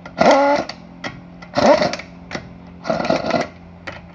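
Pneumatic impact wrench, fitted with a 90 foot-pound torque stick and socket, running lug nuts down snug in three short bursts, one nut at a time, about one and a half seconds apart.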